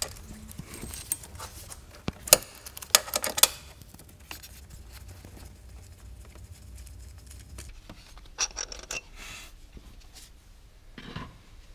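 Small metal clicks and clinks as a timing-belt tensioner pulley is unbolted by hand and taken off a 1.6 HDi diesel engine. A cluster of sharp clicks comes between about two and three and a half seconds in, then quieter handling noises.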